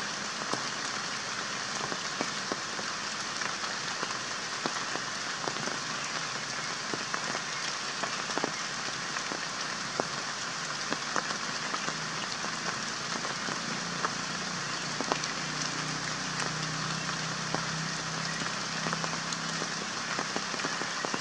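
Steady rain falling, with many individual drops ticking sharply on leaves and branches, and a faint low hum in the second half.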